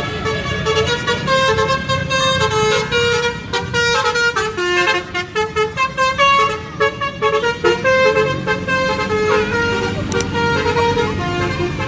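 Bus telolet basuri multi-note air horn playing a tune: a quick run of short horn notes stepping up and down in pitch, often two or more sounding together, over a steady low rumble.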